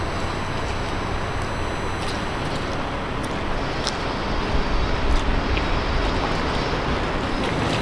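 Outdoor railway station ambience: a steady low rumble of distant trains and traffic, with a few faint clicks, swelling louder briefly about five seconds in.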